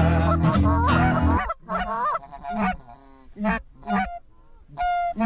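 Acoustic guitar music for about the first second and a half, then it cuts off and Canada goose honking takes over: loud, short two-note honks, about two a second.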